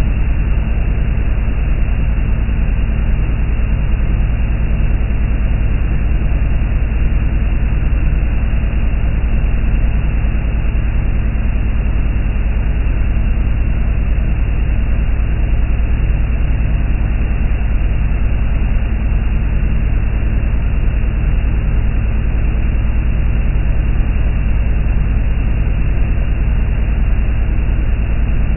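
Speedboat running fast on open sea: a loud, steady engine drone mixed with wind and water rushing from the wake, unchanging throughout.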